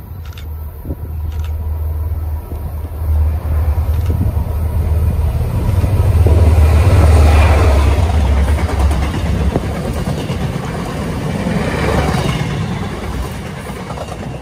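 MBTA commuter rail train of bilevel coaches passing at speed: a deep rumble and rushing rail noise that swells to its loudest about halfway through and fades toward the end.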